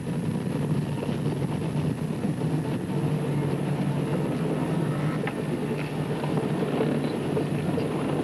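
Car driving, heard from inside the cabin: a steady low engine and road drone that holds an even level.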